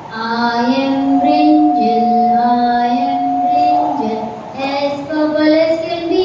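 Children singing a song together, with long held notes.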